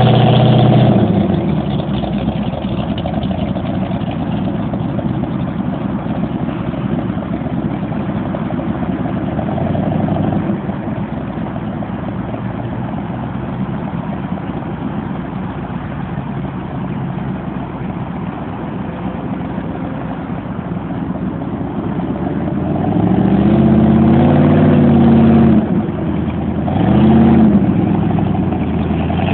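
Jet boat's Chevrolet 454 big-block V8 running at low speed, a steady rumble with water noise. Near the end it revs up twice, rising then falling in pitch each time for a couple of seconds.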